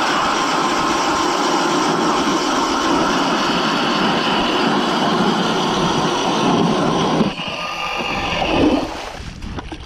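ION battery-powered electric ice auger drilling through ice, its motor running under load as the bit cuts. The sound is steady for about seven seconds, then drops and changes, and stops shortly before the end.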